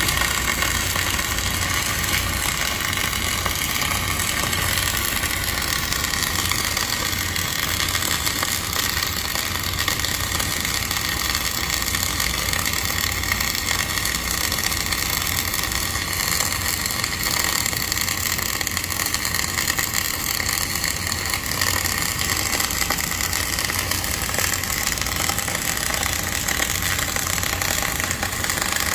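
Steady industrial arc-work noise on a rotary kiln tyre: a continuous low hum under an even crackling hiss that runs without a break.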